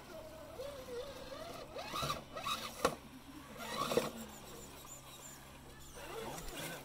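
Electric motors of radio-controlled scale crawler trucks whining, the pitch wavering with the throttle, with louder bursts of revving about two seconds in and again near four seconds.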